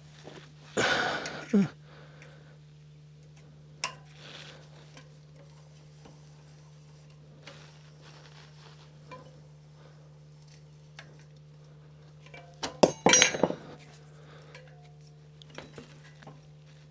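Metal tools and bolt hardware clinking and clattering as they are handled, with a burst about a second in, scattered light clicks, and a louder run of clanks around thirteen seconds, over a steady low hum.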